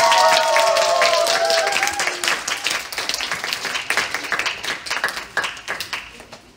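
Small audience clapping, with high voices cheering over the first two seconds; the applause thins out and fades away toward the end.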